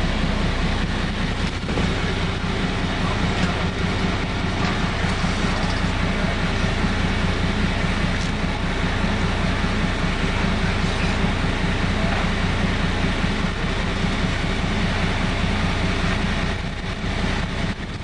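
Vehicle engine and road noise, steady and fairly loud, with a low engine drone, heard from inside a moving vehicle; it drops away abruptly at the very end.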